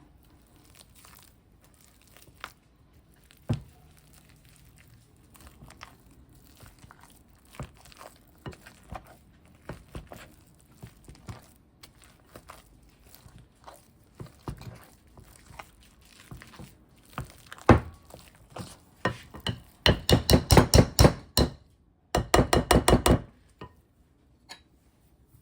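Boiled potatoes being mashed by hand, the masher knocking and clinking against the pot with scattered strikes, then two fast runs of rapid banging near the end.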